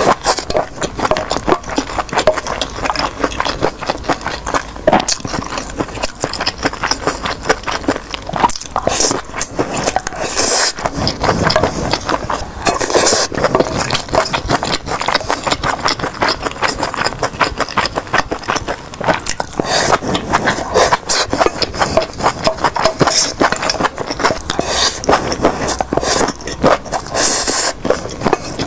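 Close-miked eating sounds: continuous chewing and crunching with many quick, sharp clicks and scrapes.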